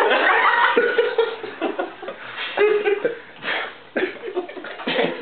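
A small group of people laughing and chuckling, with scattered voices mixed in.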